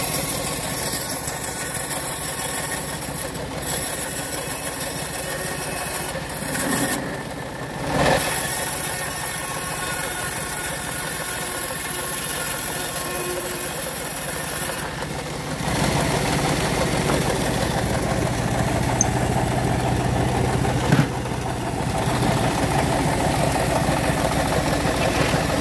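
Engine-driven homemade bandsaw mill running steadily while teak and acacia boards are fed through the blade. There is a short jolt about eight seconds in, and the sawing gets louder from about fifteen seconds on.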